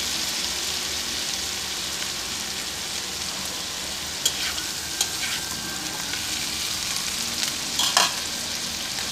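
Whole raw shrimp sizzling in hot garlic oil in a wok: a steady frying hiss, with a few short pops about four, five and eight seconds in.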